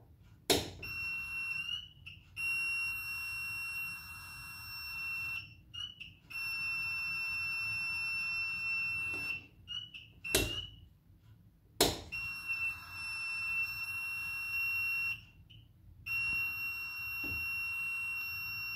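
Sauna control-panel rocker switch clicking, then a high steady electronic tone from the sauna's control electronics that sounds in stretches of about three seconds, cutting out briefly and starting again. Two more switch clicks come near the middle.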